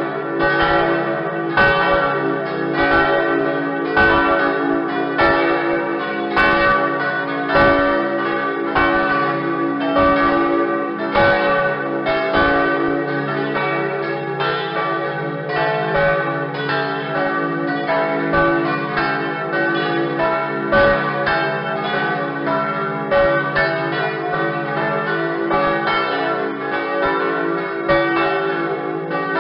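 A peal of church bells: several bells struck in turn in quick succession, about two to three strokes a second, their tones overlapping and ringing on without a break.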